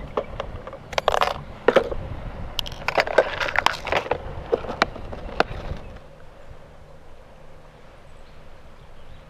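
Clicks and clatter of a clear plastic tackle box being handled, its lid and trays knocking and snapping, for about six seconds, with a few sharp snips of scissors. Then only faint outdoor background.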